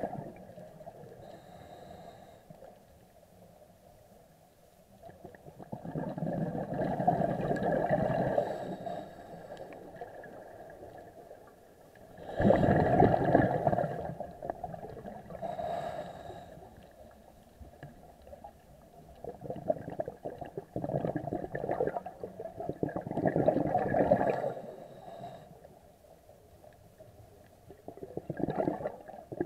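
Scuba regulator breathing underwater: exhaled air bubbling out in gurgling bursts every few seconds, with quieter stretches between breaths.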